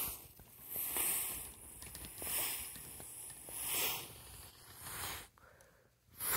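A person breathing close to the microphone: a run of breathy hissing swells, one about every second and a half.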